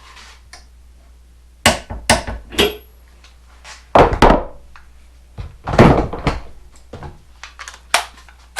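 Metal hand tools knocking and clunking as a wrench and socket are handled and set on a bolt, in three or four clusters of sharp knocks.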